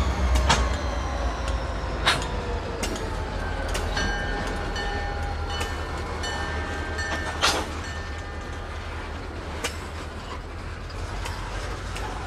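CSX freight train with tank cars rolling slowly over the track: a steady low rumble, irregular sharp clicks as the wheels cross rail joints, and a thin steady wheel squeal through the middle.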